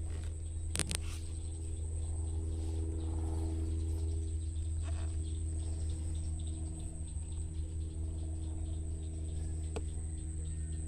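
Steady outdoor background: a continuous high insect-like whine over a strong low hum, with a few faint short calls and a sharp click about a second in.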